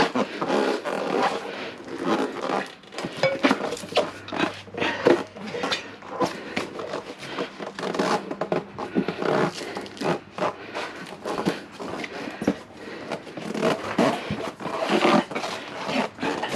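Rubber tire bead being forced over a metal wheel rim by hand during mounting: a continuous run of irregular scrapes, squeaks and clicks of rubber and tools against the rim.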